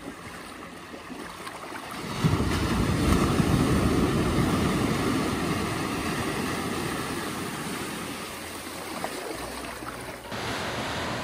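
Shallow sea surf washing in over bare feet: a wave rushes in about two seconds in, then slowly fades as the water drains back.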